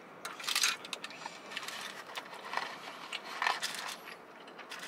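Close-miked eating sounds: chewing fried food and the crinkle of paper food wrappers, in a few short crackly bursts.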